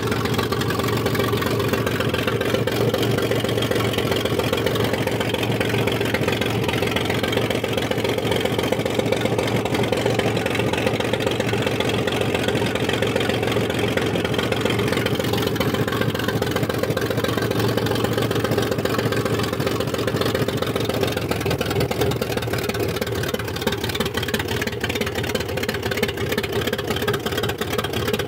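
Ford 3.0-litre Essex V6 petrol engine running at a steady idle, heard close up with the bonnet open. Its note changes slightly a little after twenty seconds in.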